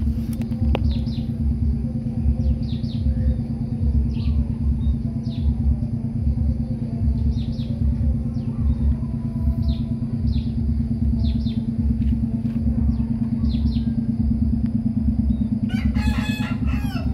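A steady low motor hum with a slow, even throb, under short high bird chirps repeating every second or two. Near the end a rooster crows once.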